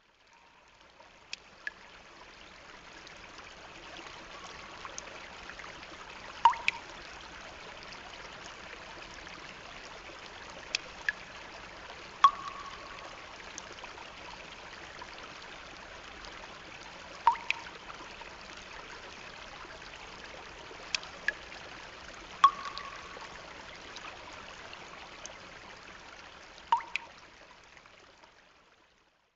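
Steady sound of a running stream or trickling water, with short sharp plinks every few seconds, often in pairs; it fades in at the start and fades out at the end.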